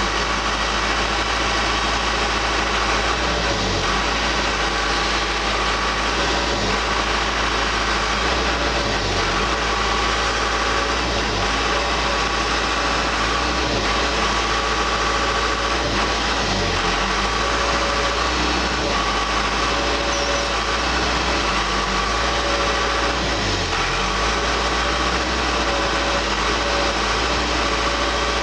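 Case skip loader's diesel engine running steadily, with a steady whine on top, while its hydraulics are cycled to move the rear box scraper.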